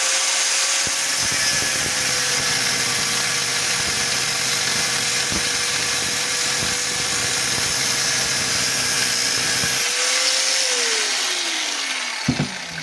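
Angle grinder cutting through the stem of an old engine valve, with its motor running at a steady pitch. It is switched off about ten seconds in and winds down, falling in pitch, and a short knock follows near the end.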